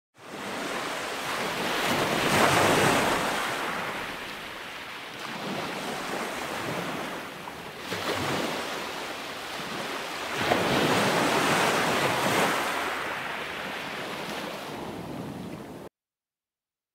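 Ocean surf: waves breaking and washing ashore, swelling loudest about two seconds in and again about ten seconds in, with wind buffeting the microphone. The sound cuts off suddenly about a second before the end.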